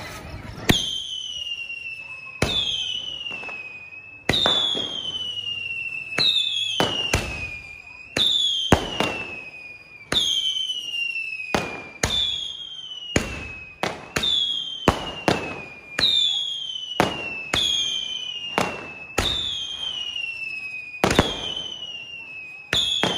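Sony Vinayaga 'Cocatoo' snake whistle, a 25-shot firework cake, firing shot after shot about once a second, starting about a second in. Each shot is a sharp bang followed by a loud whistle that falls in pitch and then levels off.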